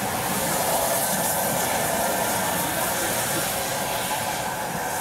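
Steam locomotive running slowly towards the listener, with a steady hiss of steam.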